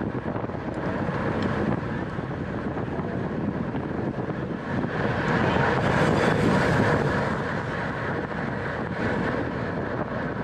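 Wind rushing over the microphone of a cyclist's camera at racing speed, a steady rush that swells for a couple of seconds around the middle.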